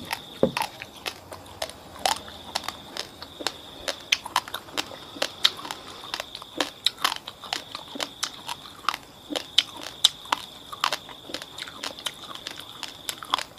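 Close-up chewing of uncooked basmati rice, fridge-cold and very hard, the dry grains cracking between the teeth in many irregular crisp clicks.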